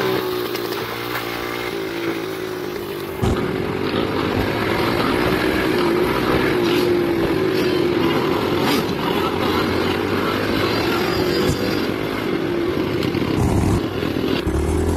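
Dirt bike and ATV engines running in a group ride, heard from a moving rider's machine, their pitch rising and falling with the throttle. The sound jumps louder about three seconds in.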